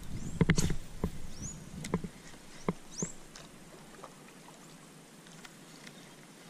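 Scattered knocks and clicks of tackle being handled in a plastic fishing kayak, with wind rumble on the microphone over the first two seconds, then only faint ticks. Three short, high rising chirps, about half a second, a second and a half and three seconds in.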